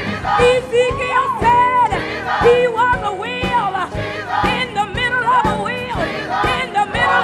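Gospel music: a choir and solo voices singing energetically over a steady percussive beat.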